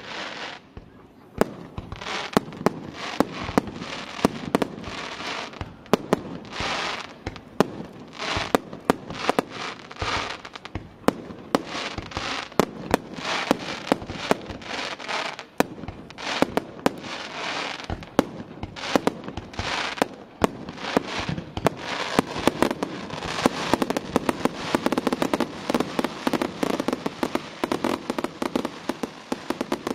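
Fireworks display: aerial shells bursting in a steady run of sharp bangs with crackling between them, the crackle thickening into a near-continuous barrage over the last few seconds.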